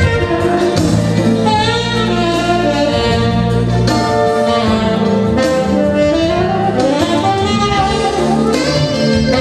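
Tenor saxophone playing a melody of held notes with some gliding bends, over a steady low accompaniment.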